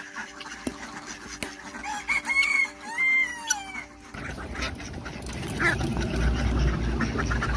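A rooster crowing once, a two-part call about two seconds in. From about four seconds a low rumbling noise builds.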